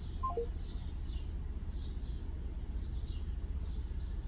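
A small bird chirping repeatedly, about twice a second, over a steady low rumble. Just after the start comes a short falling three-note electronic beep, a phone's call-ended tone.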